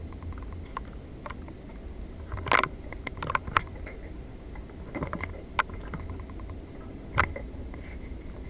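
Scattered sharp clicks and knocks, about six of them, the loudest about two and a half seconds in, over a low steady hum.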